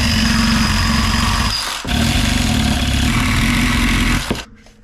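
A power tool cutting through the steel tube of a tractor PTO driveshaft to shorten it: a loud, steady motor whine with harsh cutting noise. It breaks off briefly about two seconds in, then runs on and stops abruptly near the end.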